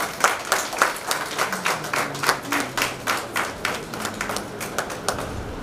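Audience clapping in a steady rhythm, about three or four claps a second, fading out near the end.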